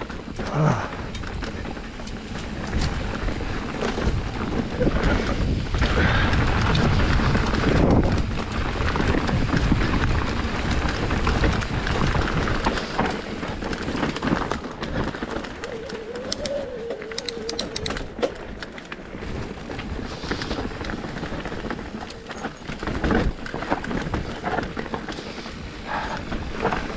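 Mountain bike riding down a leaf-covered dirt singletrack: steady tyre noise on dirt and dry leaves mixed with wind on the microphone, and short knocks and rattles from the bike over bumps.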